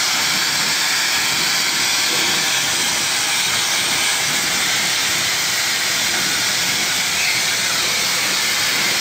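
Hair dryer blowing steadily: a constant, even rush of air.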